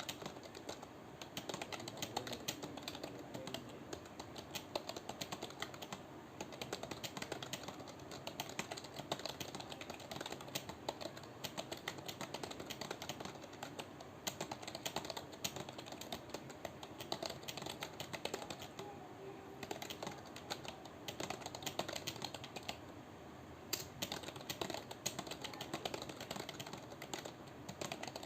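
Computer keyboard being typed on continuously and fast, a rapid unbroken run of key clicks at about 80 words a minute, with no pauses for backspacing.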